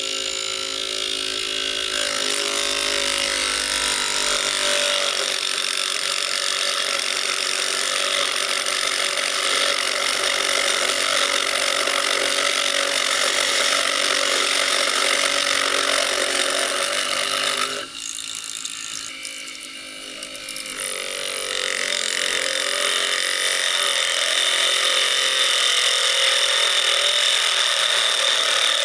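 A Tyre Razor machine's small electric motor spinning a plastic slot-car wheel on its axle while the mini lathe's cutting blade shaves plastic off the wheel, a steady whirring scrape. It drops off suddenly about two-thirds of the way through, then builds back up and runs a little louder near the end.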